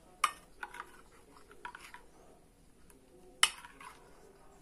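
Metal spoon stirring a thin batter in a ceramic bowl, clinking against the bowl's side: two sharp clinks, one just after the start and a louder one about three and a half seconds in, with a few faint ticks between.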